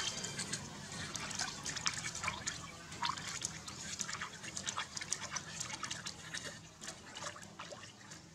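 Bathwater splashing, dripping and trickling in a tub as hands scoop, pour and scrub it over a baby monkey, in many small irregular splashes.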